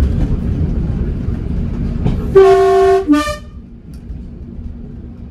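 Two-tone horn of a Class 108 diesel multiple unit sounding: a loud higher note held for about half a second, then a short lower note, over the low rumble of the train running. The rumble falls away just after the horn.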